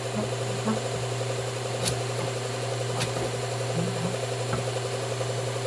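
Electric belt sharpener motor running steadily with a constant hum, with a few sharp clicks about two and three seconds in.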